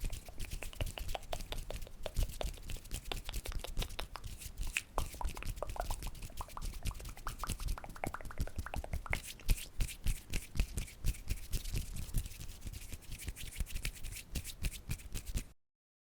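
Close-miked ASMR trigger sounds: fast, irregular taps and clicks, several a second, that cut off abruptly about half a second before the end.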